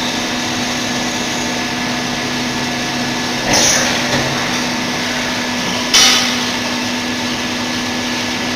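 5-axis CNC milling machine running with a steady mechanical hum and several constant tones, with two brief louder bursts of noise about three and a half and six seconds in.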